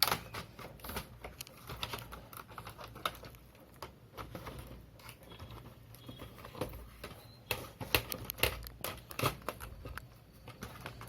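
Plastic base cover of a Dell Inspiron 15 3000 laptop being pried off: scattered clicks, scrapes and small snaps as its clips are worked loose, busiest about eight to nine and a half seconds in.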